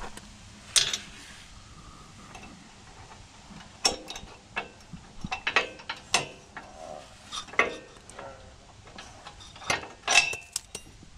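Scattered metal clicks and clanks of hand work on a tractor backhoe's mounting pins and hardware while it is being unhitched.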